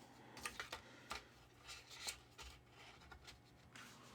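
Faint, scattered clicks and light rustling of small model-kit parts and carpet pieces being handled.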